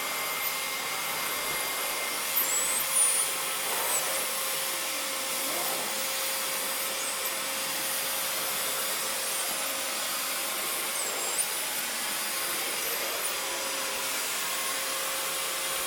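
Household vacuum cleaner running steadily, with a few brief bumps about two to three seconds in.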